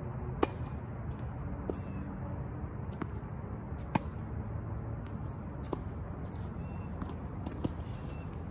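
Tennis rally on a hard court: a loud, sharp racquet strike on the serve about half a second in and another about four seconds in. In between come fainter hits and ball bounces at uneven intervals, over steady low background noise.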